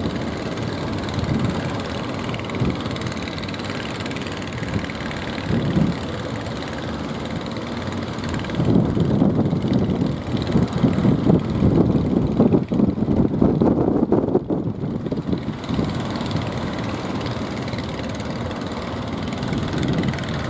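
Fishing boat's engine running steadily, with strong wind buffeting the microphone; the gusts grow louder and more erratic from about nine to fifteen seconds in.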